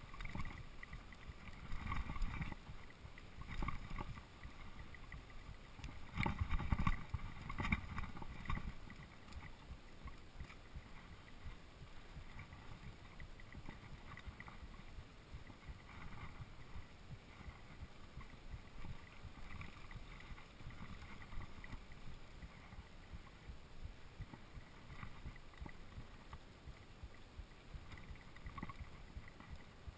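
Mountain bike rolling down dirt singletrack: a low rumble of tyres and rattling bike, with several louder jolts over bumps in the first eight seconds or so. After that the riding goes quieter, and the rider's own heartbeat can be heard faintly beating.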